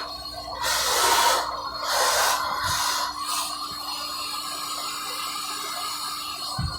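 Car wash vacuum running with a steady motor hum and whine, with loud rushes of sucked air as the hose works about one and two seconds in.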